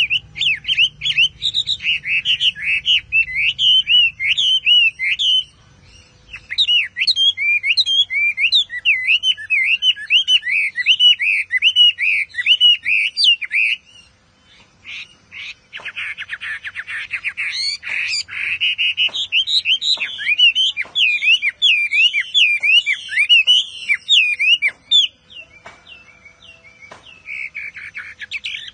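Chinese hwamei (melodious laughingthrush) singing a long, fast run of varied whistled phrases, breaking off briefly about six seconds in and again about fourteen seconds in.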